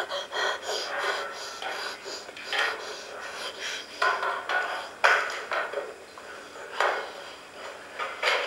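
Irregular knocks and clatters of hard objects being bumped and moved, several loud ones scattered through the stretch.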